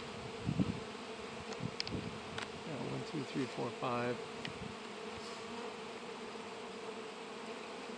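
Honeybees flying around open hives: a steady buzzing hum.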